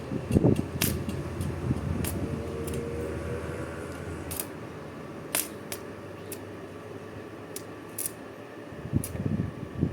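Scattered sharp clicks and knocks over a steady low hum, with rumbling handling noise about half a second in and again near the end.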